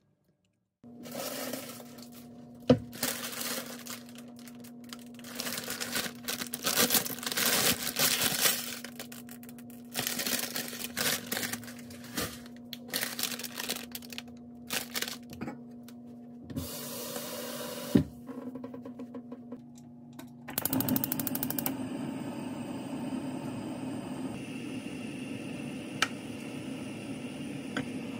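Plastic instant-noodle packet (Nongshim Jjawang Geonmyeon) crinkling and being torn open, with a few sharp clicks and a low steady hum underneath. About twenty seconds in, this gives way to the steady rush of a gas stove burner.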